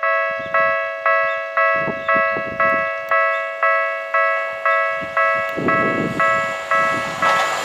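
Japanese railway level-crossing warning bell ringing in a steady rhythm of about two strikes a second, each ringing tone fading before the next, signalling that a train is coming. Near the end the rumble of the approaching train rises under it.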